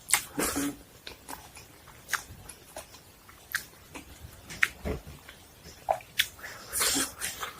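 Close-up eating sounds: irregular biting, chewing and mouth smacks as a person eats.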